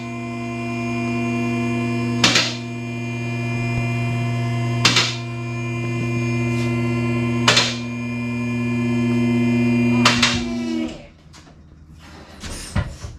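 Car lift's electric pump motor running with a steady hum as the lift rises, its safety latches clacking past a notch four times, about every two and a half seconds. The motor cuts off suddenly near the end, and a soft knock follows.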